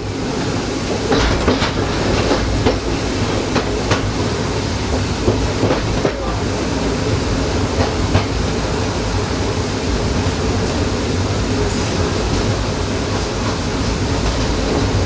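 Train running along the track: a steady rumble and rattle, with a few irregular sharp clicks as the wheels pass over rail joints and points.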